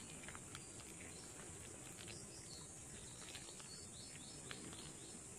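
Faint steady high-pitched insect trilling, with scattered soft wet squishing clicks from banana and flour mash being kneaded by a gloved hand.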